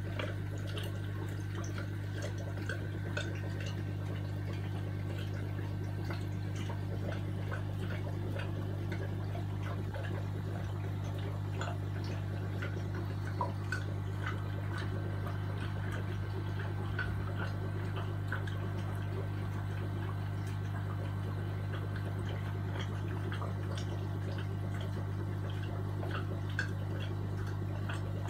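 Running aquarium: a steady low hum from the tank equipment, with water trickling and a scatter of small ticks and drips throughout.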